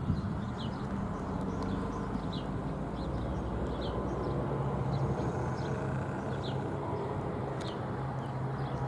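Outdoor background with no siren: a bird calling over and over with short, high, falling chirps, above a low steady rumble. A low hum joins the rumble about halfway through.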